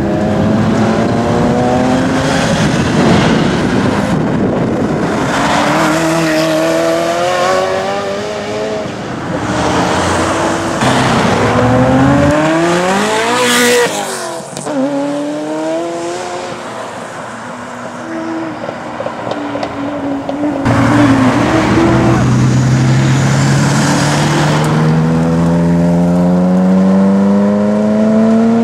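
Ferrari F40s' twin-turbo V8 engines accelerating hard one after another, each climbing in pitch through the gears with drops at the shifts. One passes close about 14 seconds in with a sharp swoop in pitch, and another pulls away loudly near the end.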